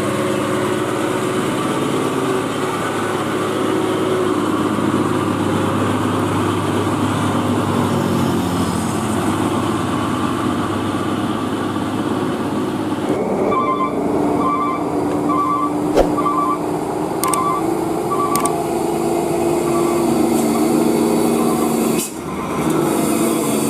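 Heavy truck engines running under load. From a little past halfway, short beeps in pairs repeat over the engine sound.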